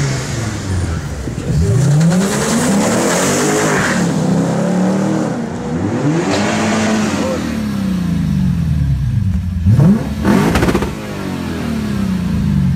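2013 Lexus IS-F's 5.0-litre V8 accelerating hard, its pitch climbing and dropping back through several gear changes, then a quick sharp rev about ten seconds in that falls away.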